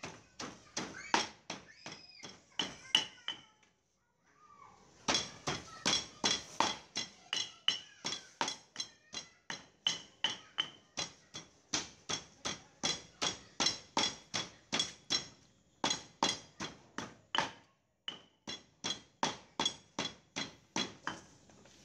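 Stone pestle pounding garlic, lemongrass, turmeric and galangal into a curry paste in a stone mortar: a steady run of sharp knocks, about two to three a second, with a brief pause about four seconds in and another near the end.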